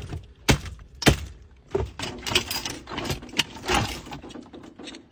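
Automatic gear selector being jerked hard back and forth, with sharp plastic clunks about twice a second at first, then a run of cracking and rattling as the shifter assembly is wrenched loose from the centre console.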